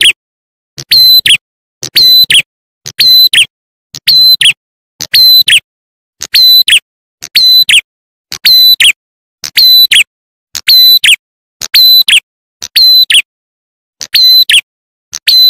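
Looped lure recording of a prenjak atas (ciblek klawu) call, one short sharp call repeated about once a second. Each call is a high held whistle ending in a quick downward slur.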